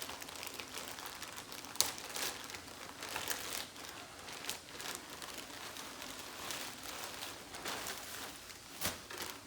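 Packaging crinkling and rustling as a shipping bag is opened and a jersey is pulled out, with many small crackles and a couple of sharper ones about two seconds in and near the end.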